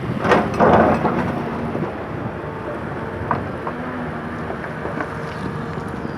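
Excavator's diesel engine running steadily. In the first second there is a loud rush of noise, and a couple of short sharp knocks come later.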